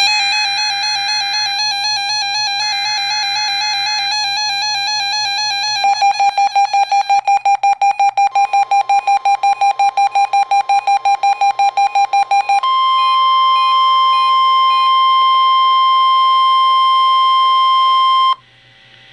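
Weather radio required weekly test alert tones. First a warbling electronic tone with two short buzzy bursts over it, then rapid beeping about five times a second. About two-thirds of the way in comes the steady single-pitch warning alarm tone, held for roughly six seconds before it cuts off suddenly, leaving faint hiss and hum.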